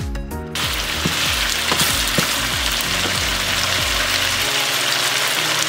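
Chicken pieces sizzling steadily in hot oil in a wok, fried with ginger-garlic paste about five minutes in, until the meat has turned white. The sizzling starts about half a second in, over background music that fades out after about four seconds.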